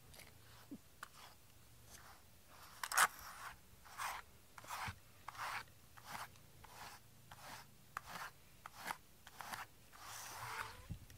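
A wire-pin slicker brush raking through a cat's short black fur in repeated strokes, about two a second. The strokes get louder about three seconds in, and one near the end is drawn out longer.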